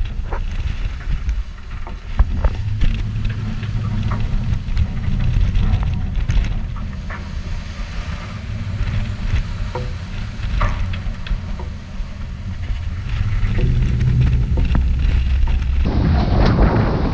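Wind buffeting the microphone on a sailboat's deck in heavy seas: a low rumble with scattered crackles. Near the end it opens into a louder, brighter rush of wind and breaking water.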